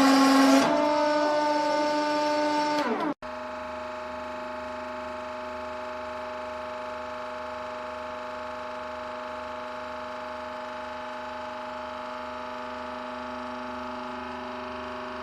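A machine running with a steady whine of several fixed tones. The first few seconds are louder and end with a falling pitch and a sudden break, followed by a quieter steady hum.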